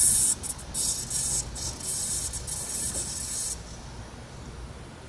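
An overheated battery cell venting gas inside a toaster oven: a loud spraying hiss that flickers with short breaks and cuts off suddenly about three and a half seconds in.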